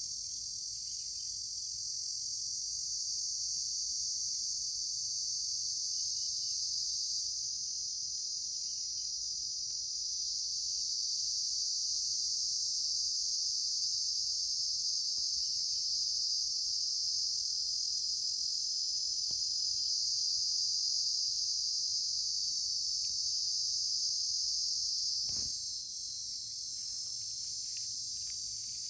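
A steady, high-pitched chorus of insects, with a single soft thump about 25 seconds in.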